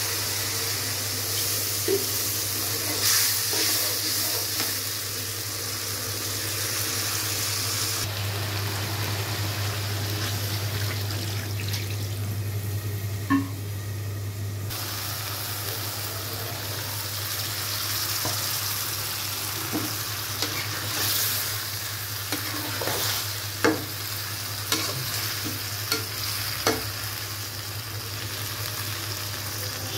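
Spiced masala sizzling and frying in a blackened wok, stirred and scraped with a metal spatula, over a steady low hum. The sizzle drops away for several seconds in the middle. In the second half the spatula clicks sharply against the pan several times.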